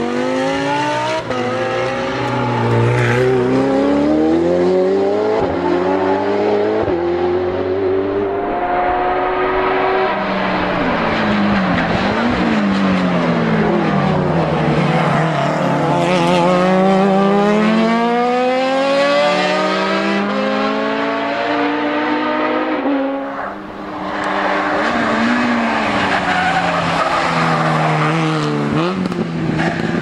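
Race car engines revving hard through hairpin bends, one car after another. The pitch climbs through each gear and drops on lifts and downshifts, with some tyre squeal.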